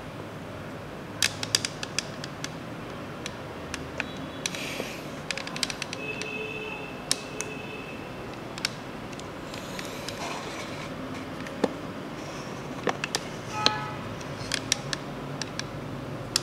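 Irregular plastic clicks and knocks from a Play-Doh ice cream playset as its extruder lever is worked and play dough is pressed out of the nozzle. A couple of brief squeaks come partway through and again near the end.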